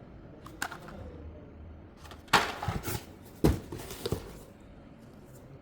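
Handling noises: a few knocks and clatters, the two loudest a little over two seconds in and about a second later, with lighter clicks between.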